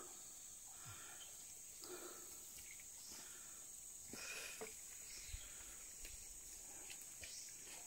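Faint, steady high-pitched chorus of forest insects, with a few faint brief sounds about two and four seconds in.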